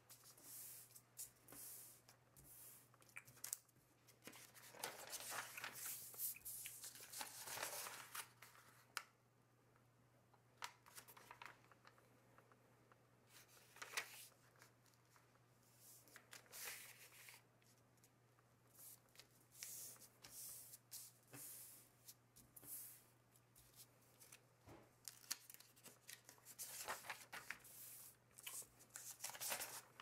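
Hands folding and creasing a sheet of thin two-coloured origami paper: faint, irregular rustling and sliding as the paper is turned, smoothed and pressed flat, busiest in the first third and again near the end. A low steady hum runs underneath.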